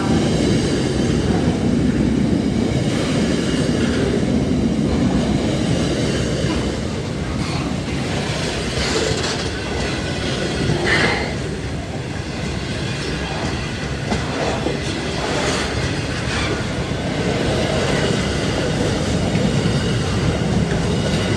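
Freight train wagons rolling past, wheels running on the rails with a steady rumble and clatter, and a few brief high squeals of wheels near the middle.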